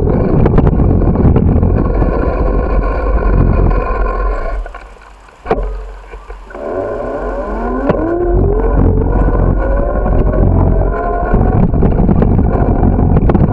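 Wind buffeting the microphone and road rumble from a moving bicycle. The rumble dies down for about two seconds near the middle, with a sharp click, then picks up again as a whine rises in pitch.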